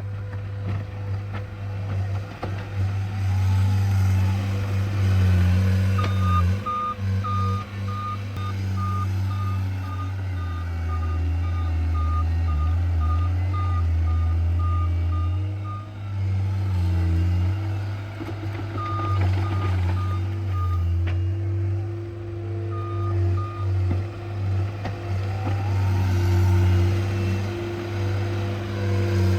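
Tracked John Deere skid steer's diesel engine working steadily under load, with its backup alarm beeping about twice a second in runs as the machine reverses.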